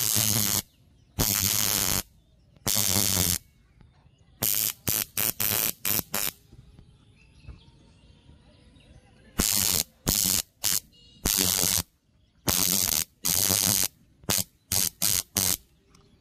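High-voltage arc buzzing and crackling from a homemade taser-style electric shotgun, powered by a high-voltage generator module and transformer, fired in repeated bursts. First come three zaps of about a second each, then a quick run of short zaps, then more zaps of mixed length.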